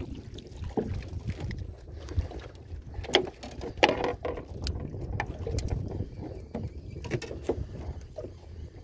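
Wind on the microphone and water slapping a small aluminium boat, with a few sharp knocks and thumps on the hull, the loudest about four seconds in, as a hooked corvina (South American silver croaker) is swung aboard and handled.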